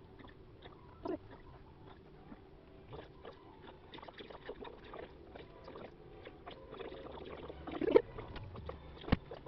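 Handling noise: scattered small clicks, taps and soft rustles, with a louder knock about eight seconds in and a sharp click just after nine.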